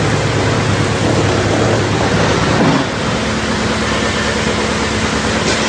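Drum wood chipper running loudly: a dense, steady rushing noise over a low hum, a little louder for a moment about two and a half seconds in.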